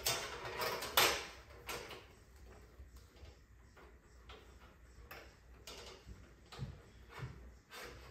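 Scattered clicks, taps and light knocks of parts being handled inside an opened LCD TV during an LED backlight strip replacement. The loudest knock comes about a second in.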